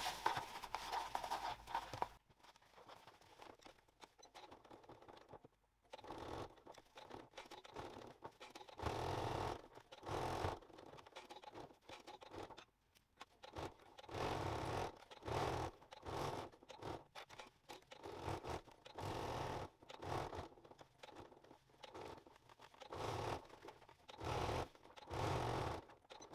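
Domestic electric sewing machine stitching in short runs with brief stops, edge-stitching around a fabric pocket and closing its turning gap. Fabric is handled in the first couple of seconds.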